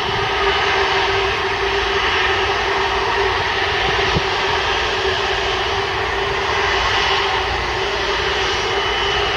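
Rolls-Royce Trent 700 turbofans of an Airbus A330-200 running at low taxi power: a steady jet hum with a constant tone over a broad rush and low rumble.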